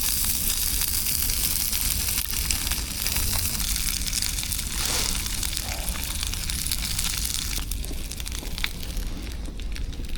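A5 Wagyu steak sizzling and crackling as it sears, a dense spitting hiss with many small pops. The hiss eases about eight seconds in, leaving sparser crackles.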